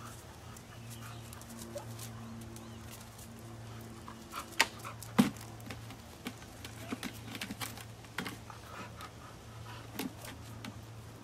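Bulldog panting, with a few sharp clicks and taps, the loudest about five seconds in, over a steady low hum.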